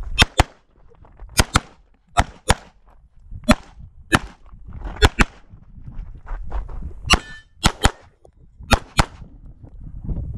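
Walther PDP SF pistol fired in quick pairs, about eight double taps with two shots a fraction of a second apart, one pair every second or so as the shooter moves between targets. A brief ring trails one shot about seven seconds in.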